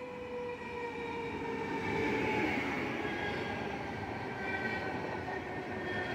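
Stadler FLIRT electric multiple unit passing close, its traction motors whining in several tones that slowly fall in pitch over the rumble of its wheels on the rails. It grows louder over the first two seconds or so as it draws near, then holds steady.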